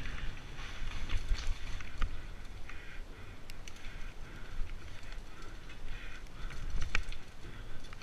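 Mountain bike rolling fast down a dirt forest singletrack: tyres on dirt and wind rumbling on the bike-mounted camera's microphone. The bike rattles over bumps, with sharp clicks and knocks now and then; the loudest comes about seven seconds in.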